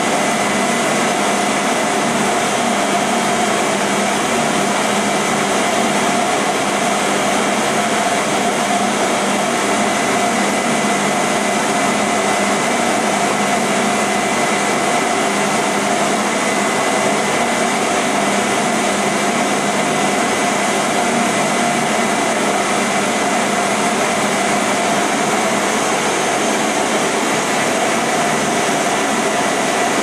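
Recorded vacuum cleaner motor hum mixed with white noise, running steadily without change: a few steady tones over an even hiss.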